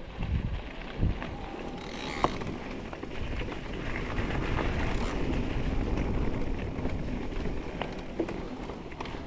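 Electric mountain bike rolling down a rough dirt trail: steady tyre and chassis rattle with wind on the microphone, and a few sharp knocks as it hits bumps, about a second in, after two seconds and near the end.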